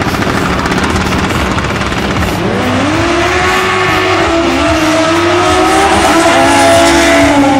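Two turbocharged front-wheel-drive drag cars, one of them a Chevrolet Cobalt with an Ecotec four-cylinder, launching off the line and accelerating hard down the strip. About two seconds in the engine note climbs sharply, then rises in steps through the gear changes, growing louder as the cars pass.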